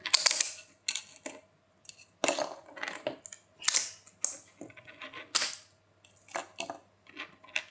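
3D-printed PETG plastic parts clacking and knocking against each other and a hard surface as they are handled, in irregular sharp clicks of varying loudness.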